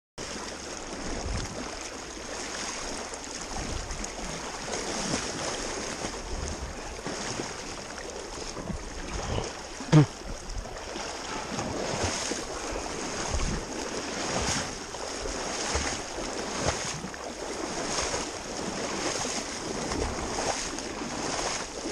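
Water sloshing and splashing around legs wading upstream through a shallow river, about one splash a second with the stride, with wind on the microphone. A short falling squeak about halfway through.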